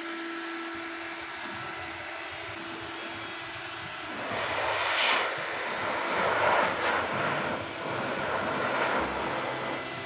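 Eureka Forbes Euroclean Bullet 1300 W vacuum cleaner running in blower mode, a steady motor whine with a rush of air. About four seconds in, the air rush grows louder and surges in waves.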